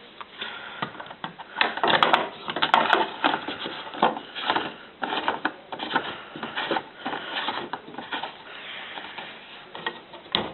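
Irregular clattering, knocking and scraping of plastic washing-machine parts being handled, likely the pump filter and its cover on a Zanussi front-loader being refitted. The sound is busiest about two seconds in.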